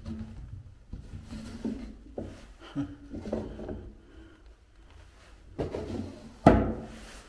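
A series of knocks and scrapes, with a short falling creak about three seconds in and a loud thump about six and a half seconds in.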